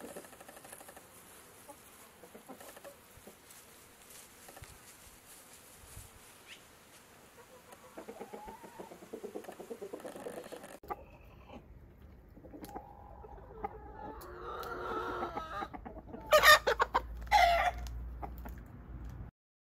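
Aseel chickens clucking, faint at first. Past the halfway point a rooster crows, and two loud, harsh calls follow near the end.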